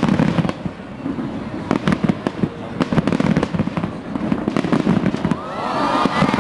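Large fireworks display going off in rapid, irregular bangs and crackles over a low rumble. Excited crowd voices rise near the end.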